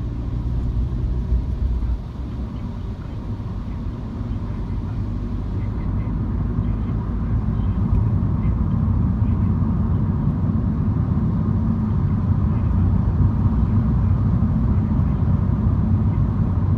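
A MINI driving, heard from inside the car: a steady low rumble of engine and road noise. It dips about two seconds in, then slowly builds.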